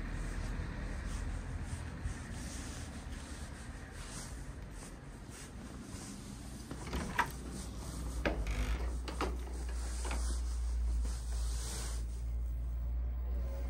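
Wooden church door being opened by hand: several sharp clicks and knocks of its iron latch and handle in the second half, over a steady low rumble.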